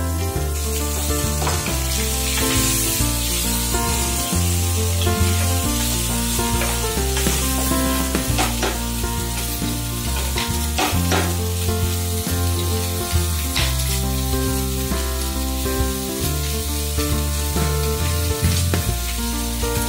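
Pork pieces frying without added oil in a wok, sizzling, with a wooden spatula knocking against the pan now and then as they are stirred. Background music with a steady bass line plays along.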